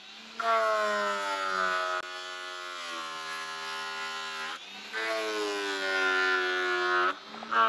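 Cordless angle grinder working on an aluminium mast, making a high whine whose pitch slowly falls during each run. It stops briefly twice and starts again at a higher pitch each time.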